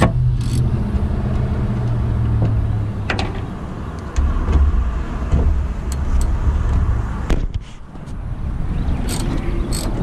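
A motor vehicle engine running with a steady low rumble, louder from about four seconds in and dipping briefly near eight seconds. A few light metal clicks from socket-wrench tools sound over it.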